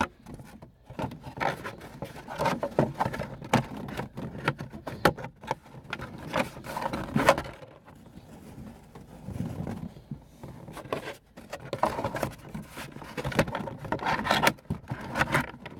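Plastic car interior trim being forced into place by hand: irregular scraping and rubbing of plastic on plastic, with sharp clicks and knocks.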